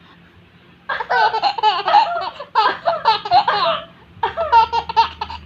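A baby laughing in two long fits of rapid, high-pitched laughs, starting about a second in, with a short break just before the second fit.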